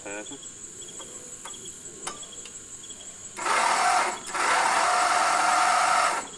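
Small garden tractor's electric starter cranking the engine in two bursts, a short one about three and a half seconds in and a longer one right after, each cutting off without the engine catching. Crickets chirp faintly, with a few light clicks before the cranking.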